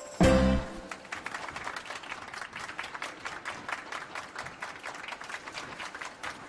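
A sudden loud thump with a brief ringing tone, followed by steady applause: many hands clapping.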